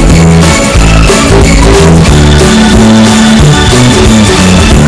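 Background music: an upbeat track with guitar and drums and a steady beat.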